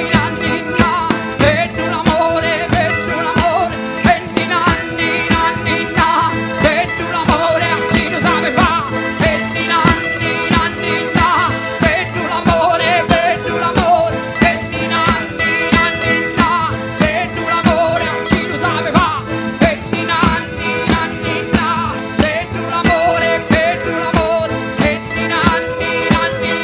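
Live southern Italian folk band playing a lively dance tune, with plucked strings and a flute over a quick, steady beat.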